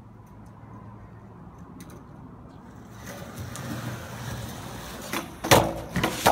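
Skateboard wheels rolling on concrete, growing louder from about halfway through, then a sharp loud crack of the board followed by two more clattering impacts as the trick is bailed and the board and rider hit the ground near the end.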